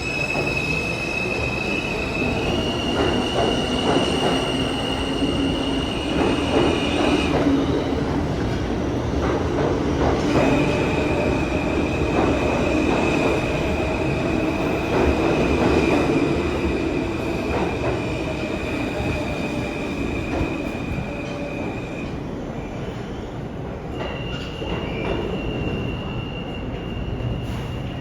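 New York City Subway L train running on the rails with a steady rumble. High-pitched wheel squeal is held for several seconds at a time, fading out about a quarter of the way in, returning after a short break, and coming back again near the end.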